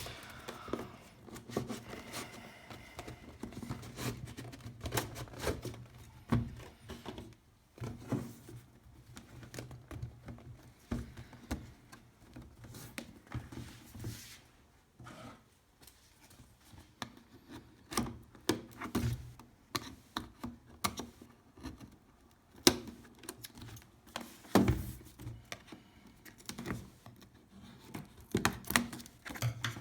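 Cardboard and plastic packaging of a headset box being opened and handled: irregular clicks, taps, scrapes and rustling, with a few louder knocks past the middle.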